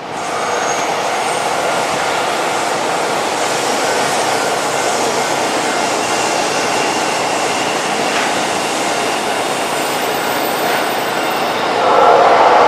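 Train running on the rails: a steady rumble of wheels on track that grows louder about twelve seconds in.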